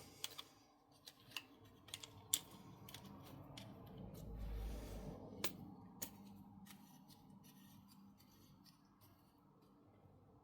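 Faint metallic clicks and scraping as a folding pruning saw's blade is taken out and swapped in, with a longer rubbing, handling noise around the middle. The clicks thin out over the last few seconds.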